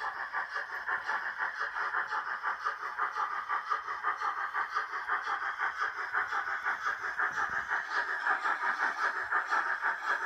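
Digital sound decoder of an H0-scale model steam locomotive playing steam chuffing through its small onboard speaker as the engine runs, a fast, even beat of chuffs.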